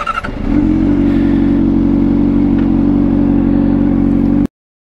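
Sport motorcycle engine starting: a brief rising whine, then the engine catches about half a second in and runs at a steady idle. It cuts off suddenly near the end.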